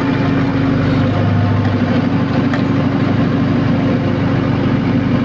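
A heavy engine of the pile-driving site's machinery, most likely the big generator set that powers the rig, running steadily at constant speed with a deep, even hum.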